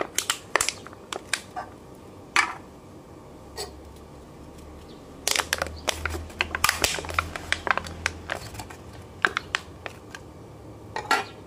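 Empty aluminium beer cans squeezed and dented by thumbs and fingers, the thin walls crackling and popping in sharp clicks. There are a few quick clicks at the start, then a dense run of crackling from about five to eight seconds in, and a last couple near the end.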